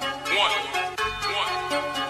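Hip-hop mixtape music with no rapping: held synth tones and short sliding pitched notes.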